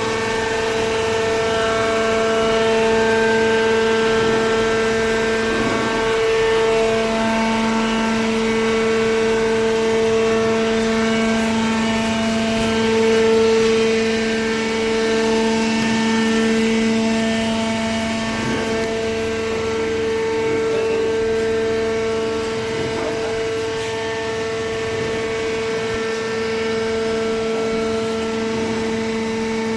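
Hydraulic baler's motor and pump running, a steady drone with a strong hum and overtones.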